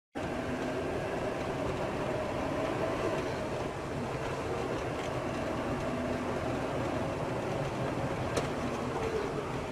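Steady rumbling running noise of a vehicle in motion, with a faint hum, and one brief sharp click about eight seconds in.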